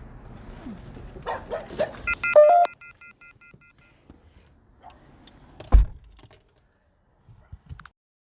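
Clicks and rattling, then an electronic chime beeping in a quick repeated pattern for about two seconds, then one heavy thump.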